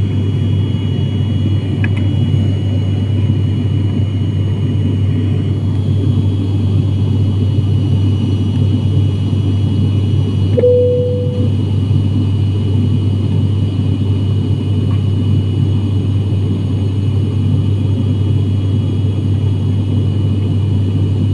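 Steady low drone of an ATR turboprop airliner's engines and propellers heard from inside the cabin in flight, with a faint high whine above it. A single short tone sounds about halfway through.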